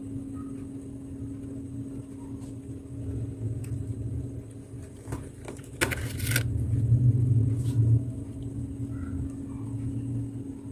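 Soft, crispy freezer frost being bitten: a brief crisp crunch a little past halfway, with a few fainter clicks before it, over a steady low hum.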